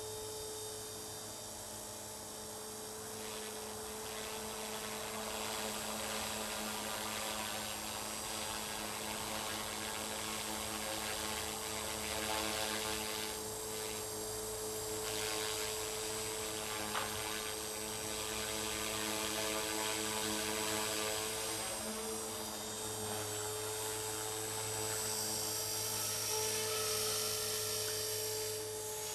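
Align T-Rex 450 Pro electric RC helicopter in flight, its rotor and motor giving a steady whine that holds nearly one pitch, dipping slightly for a moment about three-quarters of the way through.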